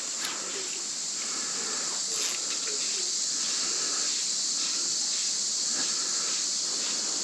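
Steady, unbroken high-pitched hiss of an insect chorus, such as cicadas or katydids, along a summer creek.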